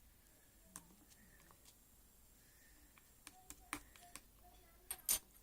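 Scattered sharp clicks or taps at irregular intervals, the loudest two close together near the end, over a faint background.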